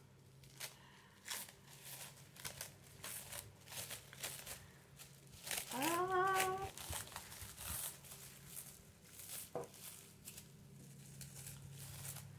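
Plastic cling wrap being pulled off and crinkled by hand: irregular crackles and rustles throughout, with a short rising vocal hum about six seconds in.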